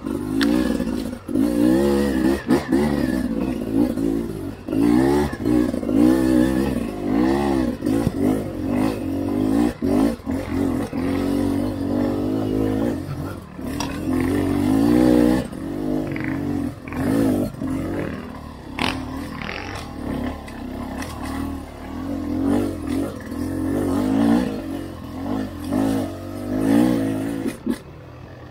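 Beta 300RR dirt bike's two-stroke single-cylinder engine revving up and down again and again while being ridden, the throttle opening and closing every second or so.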